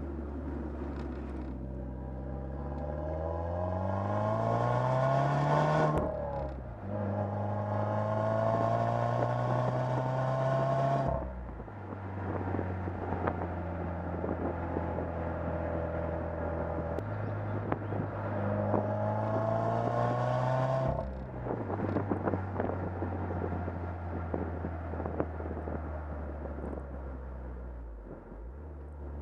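2015 Subaru WRX's turbocharged 2.0-litre flat-four heard at the exhaust under acceleration: the revs climb, break and drop at an upshift, climb again in the next gear, then fall away to a steady note as the throttle closes. The pattern repeats once more before a steady cruise.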